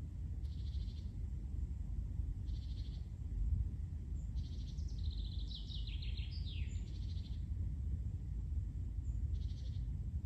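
Songbirds calling: one bird repeats a short, high trill about every two seconds, and a second, more complex song falls in pitch about halfway through, over a steady low rumble.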